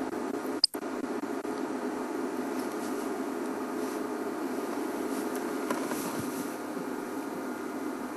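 Game-drive vehicle's steady low engine hum and buzz, with a brief dropout under a second in.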